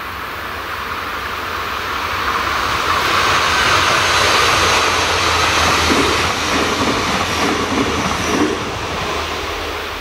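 Red diesel multiple unit passing on the line. Its running noise swells over about two seconds, holds, then fades away, with a few wheel knocks on the rails as the train goes by.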